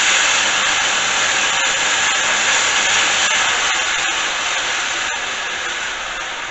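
Homemade 2x72 belt sander running with a loud, harsh hiss, very noisy. The belt is not tracking properly and is out of alignment. The sound slowly dies away over the last few seconds.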